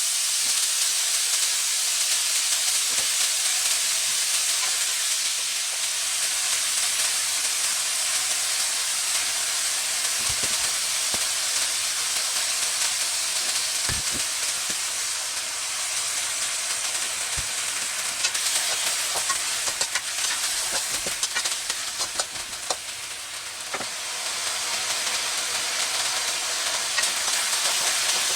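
Thai basil chicken sizzling as it is stir-fried in a hot pan, a steady frying hiss with occasional knocks and scrapes of the utensil against the pan.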